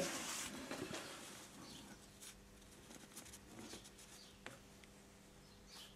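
Faint scattered ticks and light handling noises as small carburetor parts, including the inlet needle, are picked up by hand, over a faint low steady hum.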